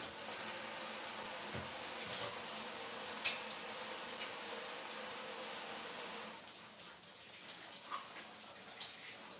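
Kitchen sink faucet running, water splashing over hands being washed after handling raw chicken; the water is shut off about six seconds in.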